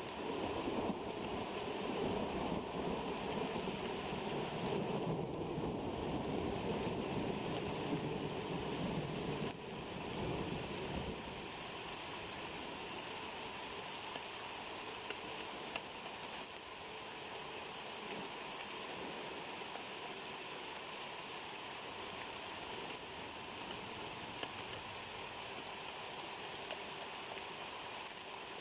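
Heavy thunderstorm rain falling steadily, a continuous hiss. For the first ten seconds or so a louder low rumble rides under it, then dies away and leaves the even rain.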